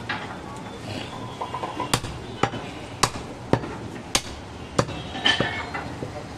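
Heavy butcher's knife chopping goat meat on a wooden stump chopping block: a run of sharp knocks about every half second, starting about two seconds in.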